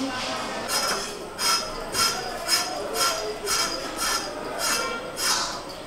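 Knife blade scraping the skin off a pointed gourd (potol), in short, even strokes about two a second, each with a thin squeaky edge.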